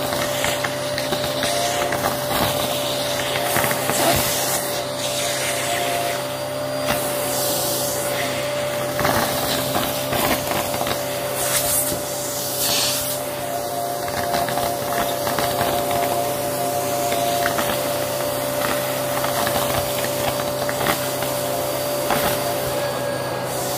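Vacuum cleaner running steadily with a whining motor, its hose wand at a pile of hair and bits of coloured paper on carpet, with brief rattles every few seconds as pieces are pulled up the tool.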